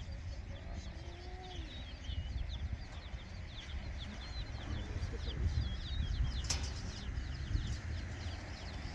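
Many birds calling from below, a dense run of short, quick high chirps throughout, over a low steady rumble. A single sharp click sounds about six and a half seconds in.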